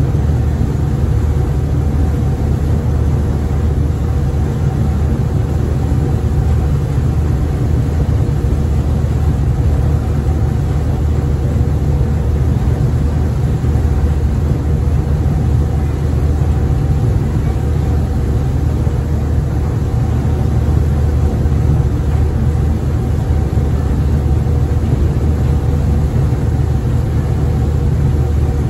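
Small passenger ferry's engine running steadily under way, heard from the stern: a loud, even low drone with a faint steady hum above it.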